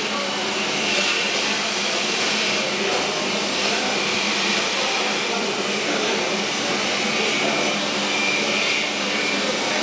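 Table-mounted router running steadily at high speed, a steady whine over a constant rushing noise, as it routes along a template.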